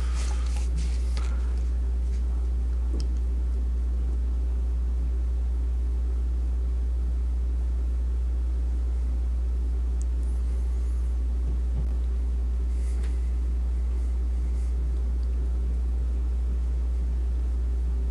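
A steady, loud, low-pitched hum with a faint higher tone running along with it, and a few small faint clicks and rustles.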